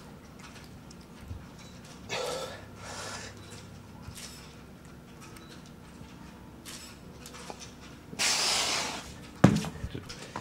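Heavy breathing from a man straining through a set of overhead dumbbell triceps extensions, with short puffs of breath a few seconds in and a longer, louder hiss of breath near the end. A sharp knock follows just before the end.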